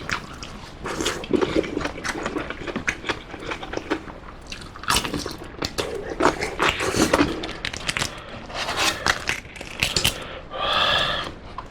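Close-miked eating sounds of spicy ramen and giant tiger shrimp: wet chewing and slurping with many short clicks and crunches. A brief pitched sound comes about a second before the end.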